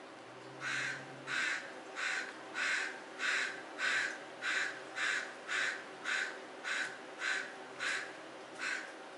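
Crow cawing in a steady series of about fourteen harsh caws, roughly two a second.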